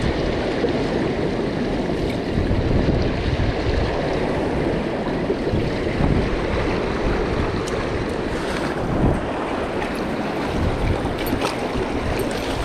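Steady rush of a mountain river's flowing water, with wind buffeting the microphone. A few light clicks come near the end.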